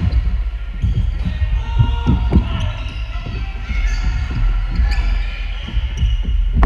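Dodgeball game in a large sports hall: a run of dull thuds from balls hitting the floor and players, over players' shouts and calls.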